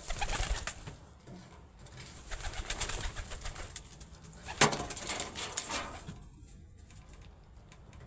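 Pigeon wings flapping in several bursts as a white pigeon flutters down onto a hand, with one sharp knock about halfway through.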